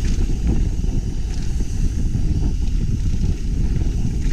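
Wind buffeting a GoPro microphone, mixed with tyre rumble, as a mountain bike is ridden along a trail. A few faint clicks from the bike are heard over the steady rush.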